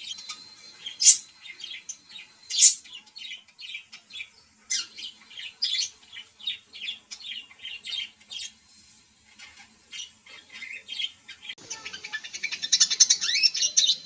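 Budgerigar chattering: a string of short, high chirps with a couple of louder squawks in the first few seconds, turning to a denser, faster warble for the last couple of seconds.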